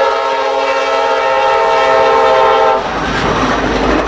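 Locomotive air horn on Norfolk Southern's Penn Central heritage unit 1073, sounding one long chord that cuts off about three seconds in. The fast-moving train then rushes past with a loud rumble of wheels on rail.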